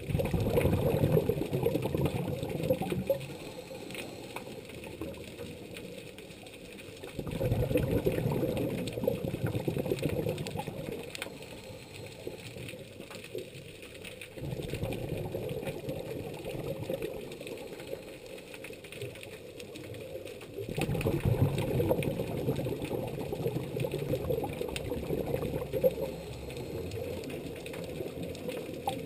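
A diver's scuba regulator exhaust bubbles heard underwater: a low, bubbling rumble that comes in four bursts of a few seconds each, about every seven seconds, with a quieter hiss between them, following the diver's breathing.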